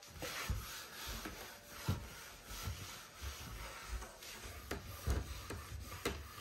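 A cloth wiping and rubbing a surface by hand, with scattered bumps and a few sharp clicks as things are handled.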